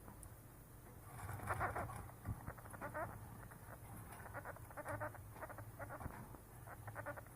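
Pet chipmunk calling in short bursts of rapid clucking pulses from its throat, starting about a second in and repeating several times: a begging call for food.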